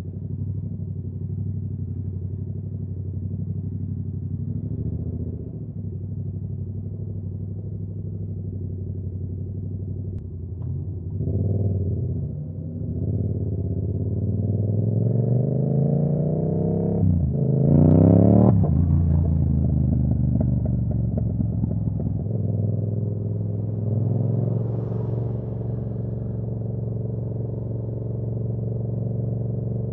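Yamaha R7's 689 cc parallel-twin engine running at a steady cruise. Past the middle it is opened up, its pitch climbing to the loudest point, then falling back as the throttle closes. After that it settles to a steady note again.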